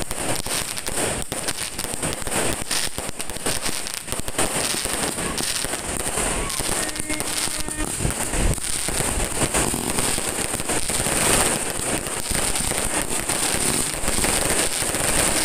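Fireworks going off in quick succession: a dense run of cracks and bangs, with one heavier boom about halfway through.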